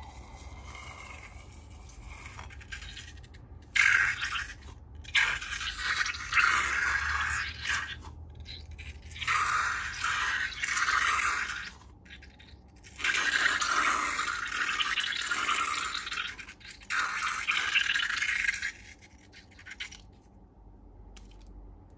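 Slime-making materials being worked by hand, in several bursts of scratchy scraping noise with short pauses between them, over a faint low hum.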